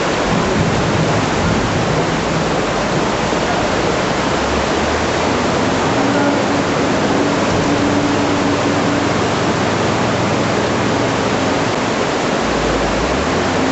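Muddy flash-flood water rushing through a town street: a loud, steady torrent.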